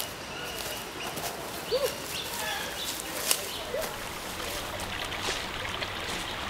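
Bush ambience with birds calling: two short arched calls and some thin higher notes over a steady background hiss, with a sharp click about three seconds in.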